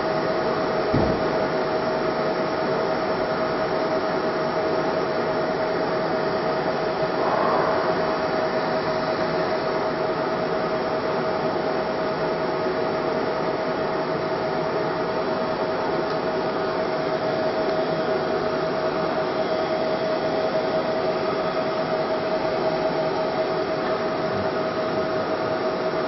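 Steady whir of running machinery with a constant mid-pitched hum that does not change, and a soft knock about a second in.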